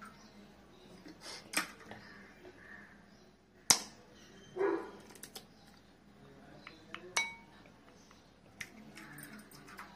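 A knife blade tapped against an egg to crack its shell, a single sharp crack a little under four seconds in, followed by a short lower-pitched sound. Later come light clinks of the knife against the ceramic bowl, one ringing briefly, and small knocks as the egg is pulled open over the bowl.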